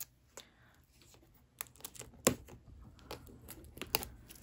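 Fingernails picking and scratching at the plastic shrink-wrap on a cardboard box corner: scattered sharp clicks and light crinkles of the film as it is worked loose for opening.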